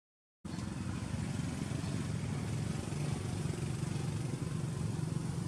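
Steady drone of a small engine running, starting after a brief silent gap.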